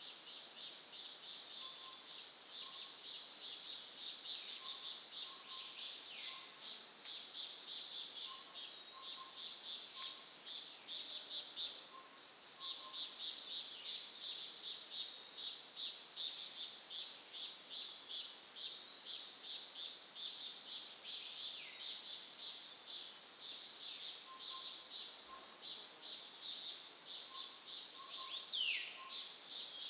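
Forest ambience: a dense, fast-pulsing high-pitched chorus, with a few short falling bird whistles and faint short paired notes now and then.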